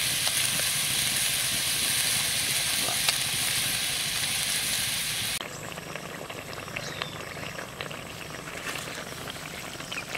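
Pork and arum-leaf curry boiling and sizzling hard in a wok over a wood fire: a steady hiss. About five seconds in it cuts off abruptly to a much quieter background with faint scattered ticks.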